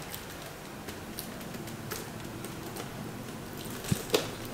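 Light clicks and taps of a curved computer monitor's plastic panel and parts being handled on a desk, with two sharper knocks near the end.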